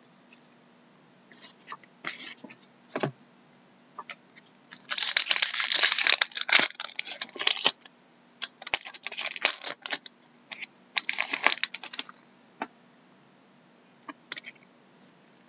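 Foil trading-card pack wrapper being torn open and crinkled, in several loud bursts of tearing and rustling from about five to twelve seconds in, with scattered light clicks and taps of cards being handled.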